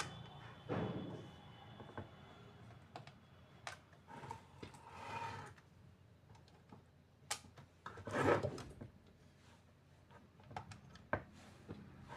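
Handling sounds from a 50-watt flood light being put back together: scattered small clicks and knocks with a few short rubbing scrapes. The loudest scrape is about eight seconds in.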